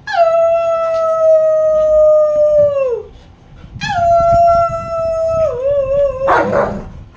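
A woman howling like a dog in two long held calls, each sliding down in pitch at the end, the second wavering. Near the end comes a short rough dog bark.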